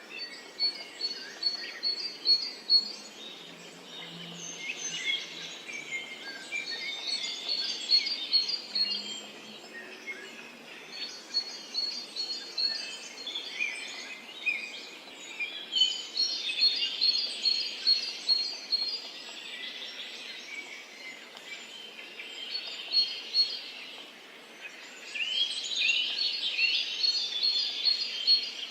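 Several songbirds chirping and singing together, one of them repeating a quick run of short high notes in bouts every few seconds, over a steady background hiss.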